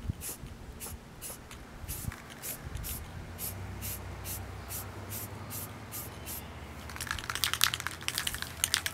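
Aerosol spray paint can sprayed in short hissing bursts, about two or three a second. Near the end, a denser rustling crunch of footsteps on dry grass.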